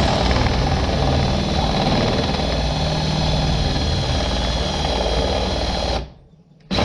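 Electric drill running under load with a steady motor whine as a hardened steel bit bores out the broken fiberglass handle stuck in a hatchet head. It stops about six seconds in and starts again just before the end.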